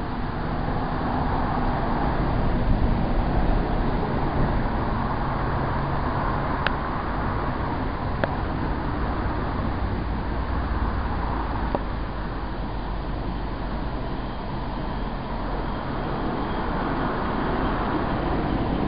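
Steady rumble of road traffic, with two brief high-pitched sounds about seven and eight seconds in.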